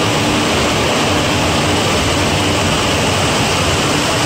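Heavy rain making a steady, loud rushing hiss without let-up, with a faint low hum beneath it.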